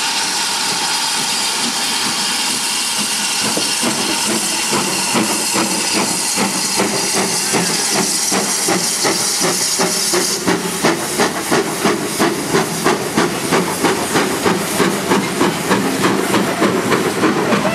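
Steam locomotive L150, a 0-6-0 pannier tank, passing close by with a loud, steady hiss of escaping steam. From about ten seconds in, the hiss dies down and the train's wheels click evenly over the rail joints and pointwork, about two to three clicks a second, as the coaches roll past.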